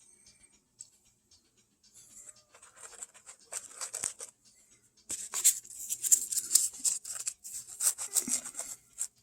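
Packaging rustling and crinkling as small parts are handled. It is faint at first and becomes dense and louder from about five seconds in.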